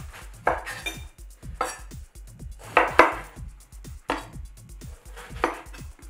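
Santoku knife chopping peeled eggplant on a wooden cutting board: about six separate strikes roughly a second apart, two of them close together about halfway through.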